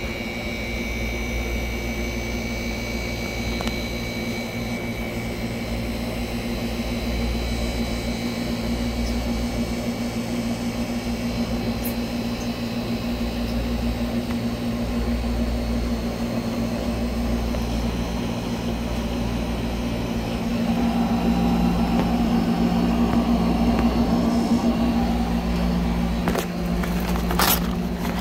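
Hermetic refrigeration compressor and condensing unit of a commercial undercounter refrigerator running steadily with an electric hum and a low pulsing rumble. It has just been started on a newly fitted start kit that replaces a burnt-out current relay. The sound grows somewhat louder about two-thirds of the way through, and there is a brief knock of handling near the end.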